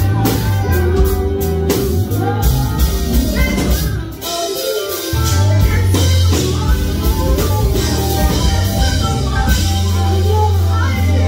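Live band playing a song with drums, a heavy bass line and a lead vocalist singing. About four seconds in, the low end drops out for about a second before coming back in full.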